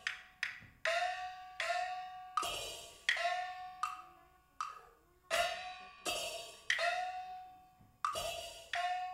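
Live Chinese opera percussion for Taiwanese glove puppetry: a small gong struck over and over, each stroke a bright clash with a ringing tone that slides up in pitch as it fades. The strokes come about every second, with a short lull in the middle.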